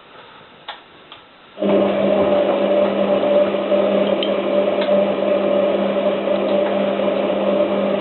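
Hotpoint 9534A washing machine at the end of its main wash: a loud, steady electric hum starts suddenly about a second and a half in and cuts off near the end.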